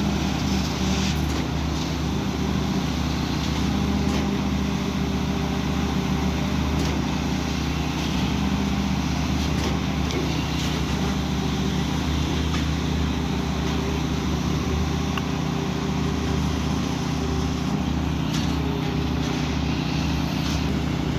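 Heavy diesel truck engine running steadily at a constant speed.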